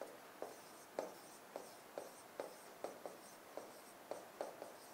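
Marker pen writing on a whiteboard: a faint run of short strokes, roughly three a second, as letters are drawn.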